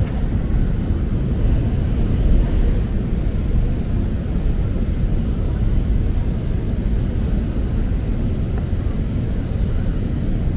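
Steady low rumble of city street ambience, even throughout with no distinct events.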